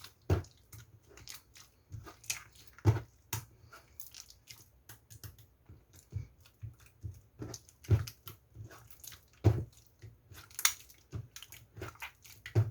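Opaque slime being squeezed and pressed by hand, giving an irregular run of sticky clicks and pops, a few loud ones among many soft ones.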